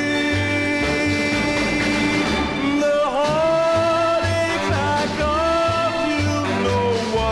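Early-1960s pop song playing from a mono 45 rpm single: long held notes over a steady bass pulse, with one note sliding down and back up about three seconds in.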